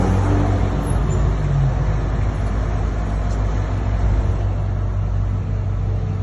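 Articulated lorry's diesel engine running at low revs as the truck pulls slowly past: a steady low rumble.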